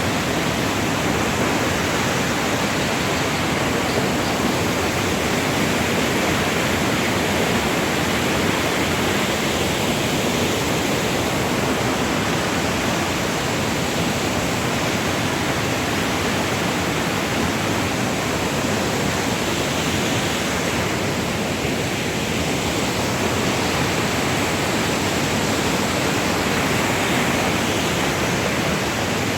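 Waterfall of the Oyacachi River pouring: a steady, unbroken rush of falling water.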